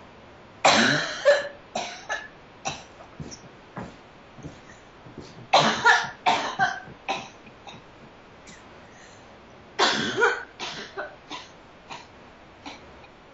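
A woman coughing in three fits, each opening with a loud burst and trailing off in shorter ones, as her body jerks while she relives electricity being run through her body.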